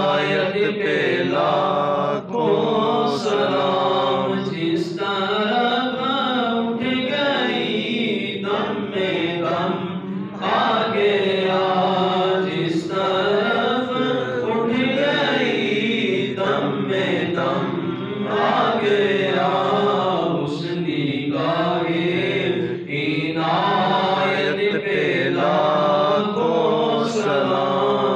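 A man's voice chanting an Urdu devotional salam to the Prophet Muhammad in long, drawn-out melodic lines with few pauses.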